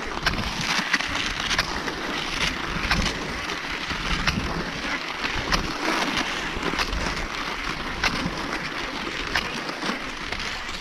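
Cross-country skis sliding and scraping along a groomed classic track, a steady hiss of snow with sharp clicks about once a second, matching the stride and pole plants; wind rumbles on the microphone.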